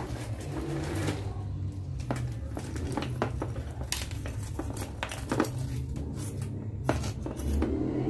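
Orchid potting mix of pine bark, charcoal and gravel being handled and packed into a wooden slat basket around the plant: scattered rustling and about half a dozen light clicks of hard bits knocking together, over a steady low hum.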